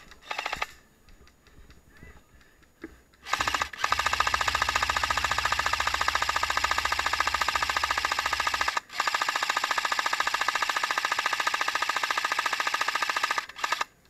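Airsoft electric support machine gun with a box magazine firing on full auto: short bursts at the start and about three seconds in, then two long bursts of about five seconds each with a brief break between, and a final short burst near the end.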